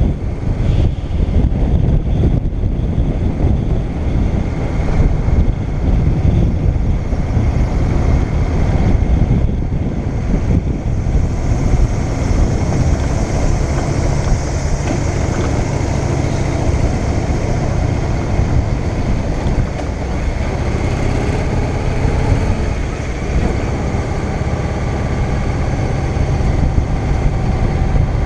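Motorcycle engine running at a steady road speed, heard under heavy wind rumble on the microphone.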